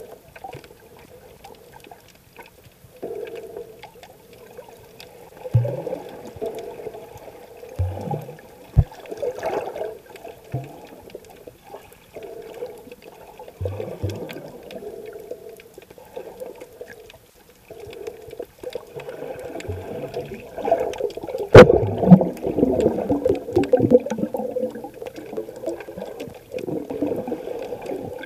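Muffled underwater water movement, sloshing and surging in waves, heard with the microphone under the surface. It is broken by a few short low knocks, and a sharp click about 21 seconds in is followed by the loudest stretch of surging.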